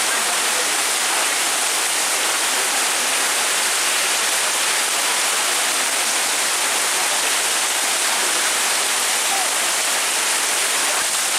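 Heavy rain pouring steadily in a dense, even hiss, with no single drops or impacts standing out.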